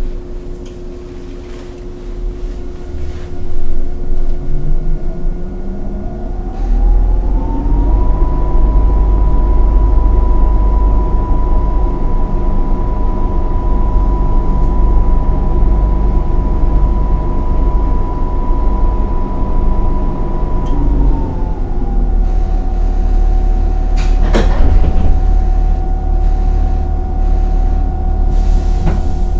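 AU712 roof-mounted air conditioner on a JR 115 series EMU car starting up, heard inside the car. A heavy low hum builds, then the inverter whine rises in pitch over about two seconds, with a fine warbling modulation like the 'Doremifa' inverter. It holds steady, then drops to a lower steady pitch around twenty seconds in. About 24 seconds in, a train door closes with a sharp thud.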